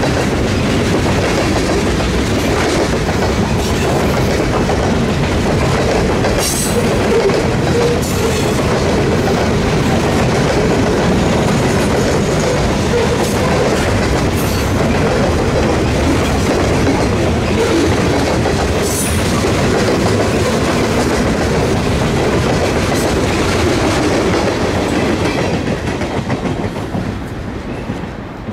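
Freight cars rolling past, their steel wheels clicking over the rail joints in a steady rumble, with two brief high-pitched sounds along the way. The sound fades away near the end as the last cars go by.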